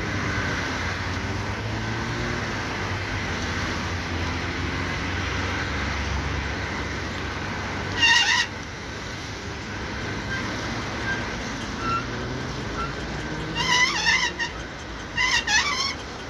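Wind on the microphone and road noise while riding a bicycle, with the low hum of passing traffic in the first half. Three short, high, wavering squeals come about halfway through and twice near the end.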